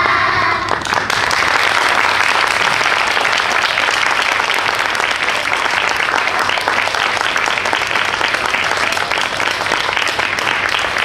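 Audience applause: many people clapping in a dense, steady wash, with children's voices heard briefly at the start.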